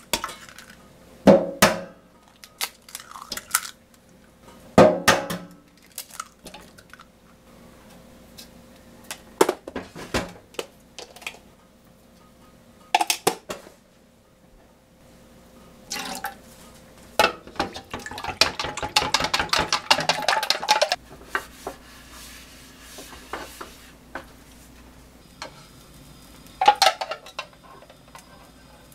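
Kitchen prep sounds: a string of sharp knocks and clinks as eggs are cracked and utensils tap against a plastic container and a stainless sink. About two-thirds through comes a couple of seconds of quick, dense clattering as the eggs are beaten.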